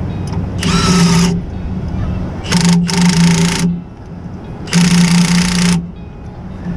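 Cordless power tool, likely an impact driver or drill, run in three short bursts of about a second each over a steady low hum.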